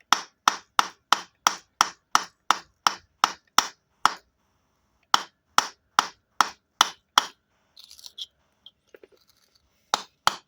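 Light, even hammer taps on a geode stone to crack it open slowly, about three sharp strikes a second. The tapping pauses briefly about four seconds in, stops for a few seconds with only faint small clatter, and starts again near the end.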